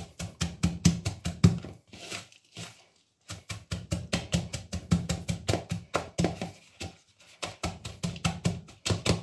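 Wooden pestle pounding broccoli florets in a plastic bowl: quick repeated strokes, about four or five a second, with a short pause about two and a half seconds in.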